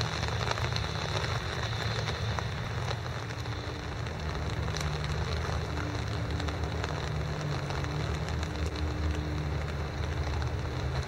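Rain falling steadily, with scattered drops ticking on wet surfaces, over a low steady rumble.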